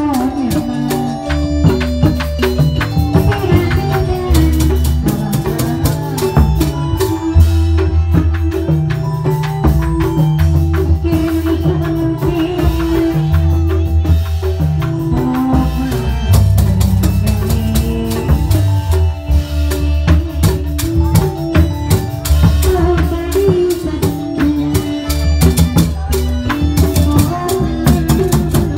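Reog Indramayu ensemble music: drums and rattling percussion over a steady deep bass and a repeating melody.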